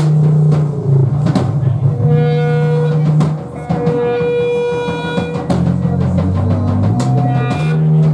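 Live band playing loud music: held bass guitar notes that step from one pitch to another, electric guitar tones over them, and regular drum hits.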